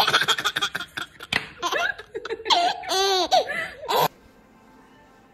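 Baby laughing hard in quick repeated bursts, rising into high squealing giggles, cut off suddenly about four seconds in; a faint steady hum follows.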